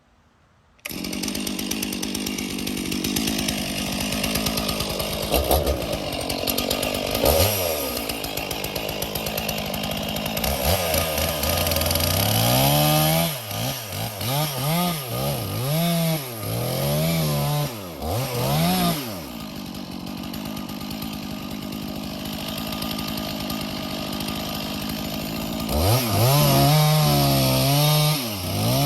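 Stihl chainsaw running, coming in suddenly about a second in. Its engine pitch rises and falls over and over, about once a second, through the middle and again near the end, with a steadier stretch of running between.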